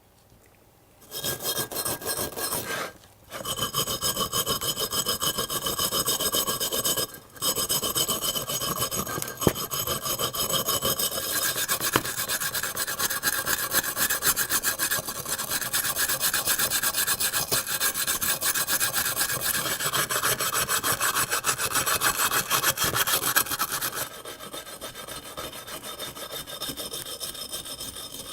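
Rust being sanded or filed off metal: a continuous rasping scrape with a steady whine through it. It stops briefly twice in the first seven seconds and turns quieter for the last few seconds.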